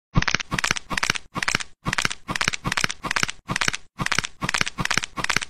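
Crackling noise in short, evenly spaced pulses, about five every two seconds.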